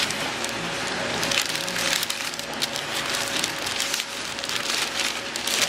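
A wrapped sub sandwich being unwrapped: the wrapper crinkles and rustles steadily, full of small crackles.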